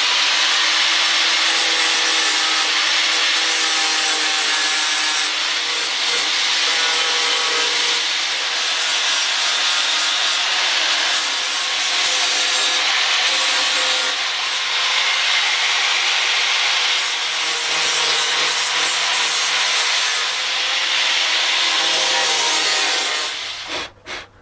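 Continuous sanding of dried body filler on a plastic car bumper, a steady rasping that stops about a second before the end.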